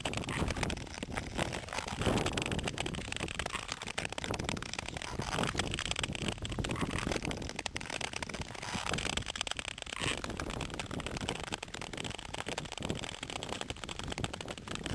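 Nordic touring skate blades scraping and gliding on natural lake ice, swelling with each stride every second or two, under steady wind noise on the microphone.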